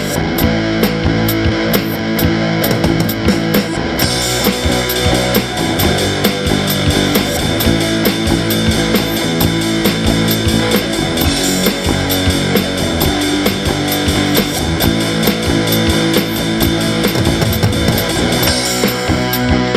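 Rock music with distorted electric guitar and a drum kit keeping a steady beat; the sound fills out brighter about four seconds in.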